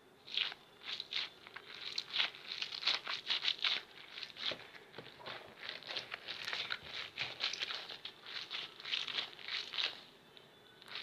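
A fidget toy being handled and squeezed, making rapid, irregular crinkling and crackling that goes on for about ten seconds.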